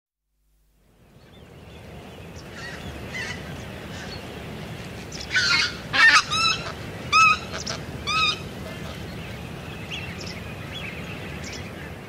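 White-fronted goose calling in flight at close range: a run of about five loud, high, yelping calls between about five and eight and a half seconds in, with fainter calls before and after. Steady wind noise underneath.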